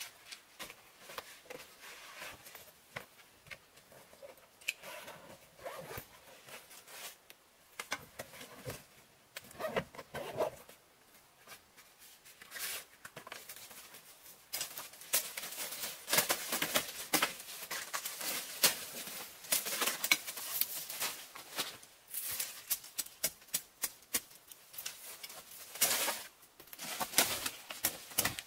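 Dry leaves, twigs and grit rustling and scraping as debris is brushed off a rock ledge and the ground under the overhang, with scattered crackles and knocks. It is sparse at first and becomes denser and louder about halfway through.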